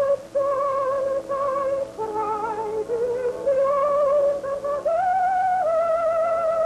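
Music: a single high melody with wide vibrato, its notes held and gliding from one to the next, over a faint steady low hum.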